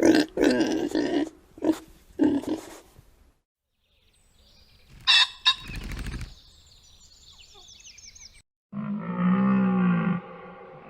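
Several different farm animal calls cut one after another: a run of short calls at the start, sharp sounds with high chirping in the middle, and a long, low, wavering call near the end.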